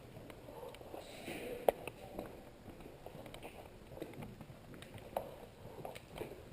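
Footsteps with small knocks and rattles of carried gear, one sharper click a little under two seconds in.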